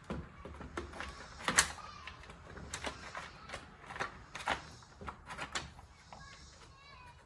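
A chainsaw being handled as a part is fitted back on: irregular clicks and knocks, the loudest about a second and a half in.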